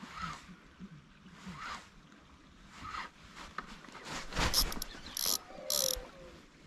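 Spinning reel ratcheting in several short bursts about four to six seconds in, as a hooked pike is played on a bent lure rod.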